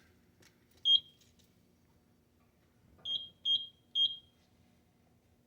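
High-pitched electronic beeps from fire alarm equipment under test: one short beep about a second in, then three quick beeps around three to four seconds in.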